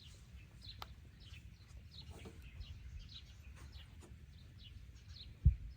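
Small birds chirping over and over in short, quick notes, over a steady low rumble, with one dull thump near the end.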